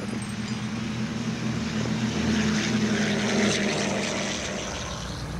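Douglas DC-3's twin radial piston engines and propellers running with a steady drone, swelling a little about halfway through and then easing.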